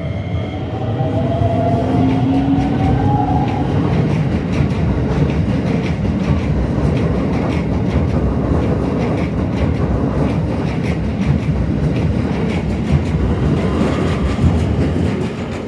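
Keikyu 2100 series eight-car electric train passing close by. A motor whine rises in pitch over the first few seconds, under a steady rumble of wheels on rail with rapid clacking over the rail joints. The sound fades near the end.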